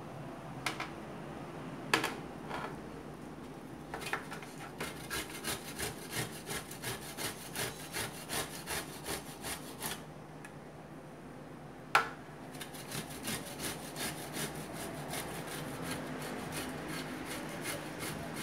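Cooked carrot being grated on a stainless-steel box grater: rhythmic rasping strokes, about three a second, stopping for a moment midway. A few knocks as the grater is handled near the start, and one loud knock in the pause.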